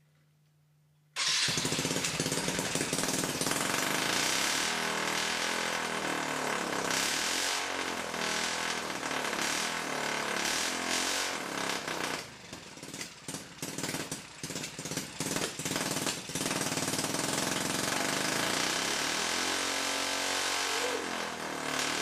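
Small engine of a homemade ultralight car, freshly tuned, starts abruptly about a second in and runs loud and steady. For a few seconds in the middle it dips and surges unevenly, then it settles back to a steady run.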